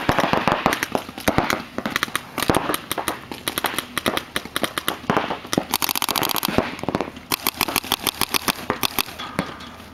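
Paintball markers firing: overlapping strings of sharp pops, many shots a second, with a dense burst of rapid fire about six seconds in. The firing thins out in the last second.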